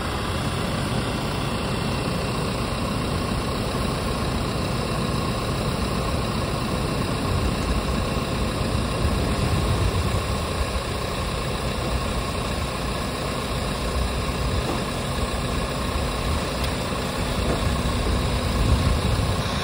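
New Holland grape harvester's diesel engine running steadily while its raised hoppers tip a load of grapes into a trailer, a little louder about halfway through and again near the end.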